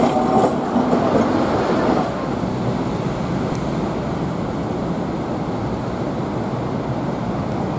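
Hong Kong double-decker electric tram running past on its street rails, with a pitched whine fading out in the first half-second. About two seconds in the sound drops to a steady, even outdoor city noise.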